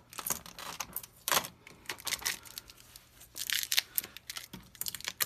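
Blue packing tape being peeled off a new printer's plastic case, a run of short, irregular rips and crinkles.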